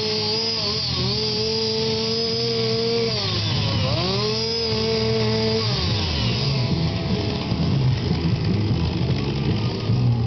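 Two-stroke chainsaw running at high revs while carving, its engine note dipping off throttle and picking back up about a second in and again about four seconds in, then settling lower and rougher from about six seconds in.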